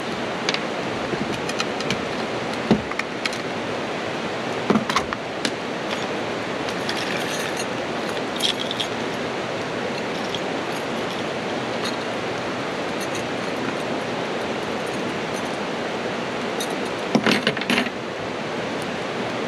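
Camp cookware and utensils being handled: scattered metallic clinks and rattles, with a cluster near the end, over a steady rushing hiss.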